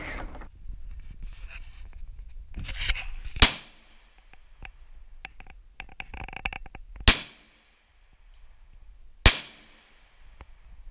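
Smith & Wesson M&P 2.0 semi-automatic pistol fired three single, deliberate shots, each a sharp crack with a brief echo: the first about three and a half seconds in, then two more a few seconds apart. Rustling and handling noise comes before the first shot.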